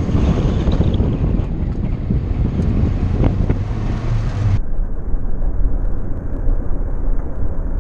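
Rallycross car driving hard on a dirt course, heard from a roof-mounted camera: heavy wind buffeting on the microphone over the engine's steady drone and the rumble of the tyres on the dirt. About four and a half seconds in, the upper part of the sound cuts out abruptly, leaving a duller rumble.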